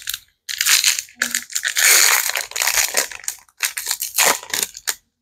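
Foil booster-pack wrapper of a Disney Lorcana trading card pack crinkling and crackling in the hands as it is worked open, in a run of bursts loudest about two seconds in.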